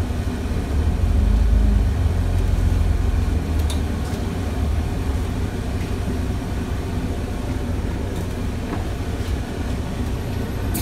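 Double-decker bus engine and running noise heard from inside the passenger cabin: a steady low rumble, with a couple of faint clicks or rattles.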